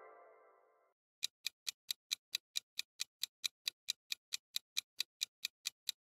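Clock-ticking sound effect: quick, even ticks about four to five a second, starting about a second in. Before it, the last of a musical sound effect fades out.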